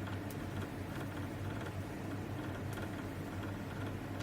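Quiet background room tone: a steady low hum with faint hiss, and two faint clicks, one near the start and one a little past halfway.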